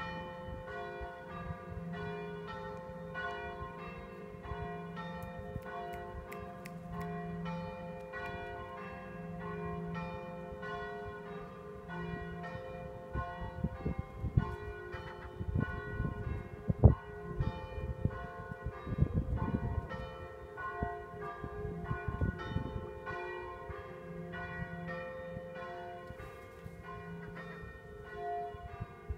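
Church bells ringing a continuous peal, several bells struck one after another in quick succession. Low rumbling bumps run through the middle, the loudest about halfway through.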